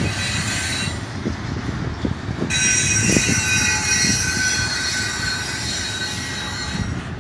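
Double-stack intermodal well cars rolling past: a steady low rumble with irregular wheel clacks, and a high steady metallic wheel squeal that comes in about two and a half seconds in and fades near the end.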